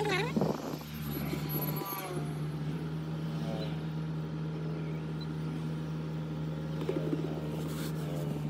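Steady low hum of a car running, heard from inside the closed cabin.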